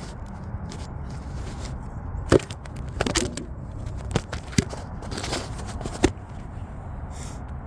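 Scattered light clicks and knocks from handling parts and tools during hand work on a car's radiator area, about six of them over a few seconds, over a steady low background rumble.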